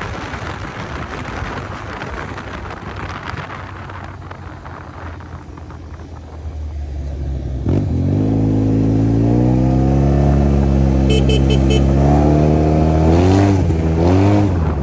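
Yamaha TMAX 530 scooter's parallel-twin engine under way: wind and road noise at first, then about eight seconds in the throttle opens and the engine note comes up loud and steady, rising slowly in pitch, dipping briefly and climbing again near the end.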